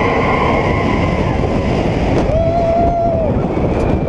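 Expedition Everest roller coaster train running fast: loud, steady wind rush on an on-ride camera's microphone. A rider gives one long held yell about two seconds in.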